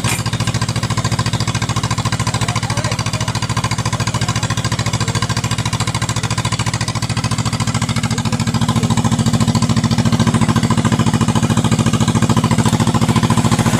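Diesel engine running steadily with a fast even pulse, getting louder about eight seconds in.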